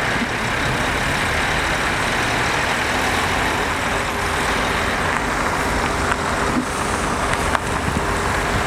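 Steady rumble of a heavy truck engine running, from the loader-crane truck holding the tree, mixed with street traffic noise. A faint steady hum joins about halfway through.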